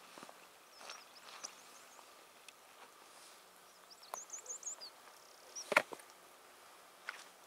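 Small birds chirping, with a quick run of high chirps about four seconds in, over a few sharp clicks, the loudest near six seconds.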